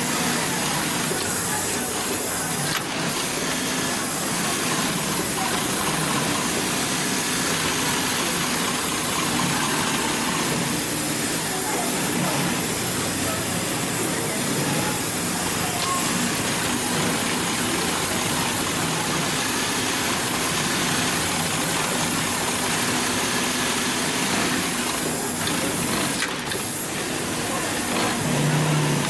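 Hightex 204-370-DP cylinder-bed twin-needle, triple-feed sewing machine stitching heavy upholstery fabric in a long steady run. It pauses briefly about three seconds in and again a few seconds before the end.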